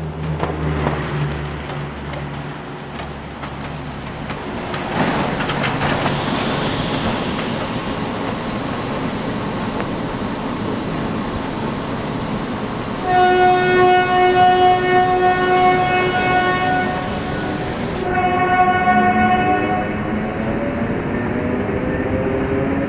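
A Strizh Talgo train hauled by an EP20 electric locomotive passes at speed and recedes. Its wheels clatter over the rails with a rush of air and blown snow, then it fades into a steady rumble. About thirteen seconds in, a train horn sounds a long chord-like blast, and a second, shorter blast follows about five seconds later; near the end there is a slowly rising electric whine.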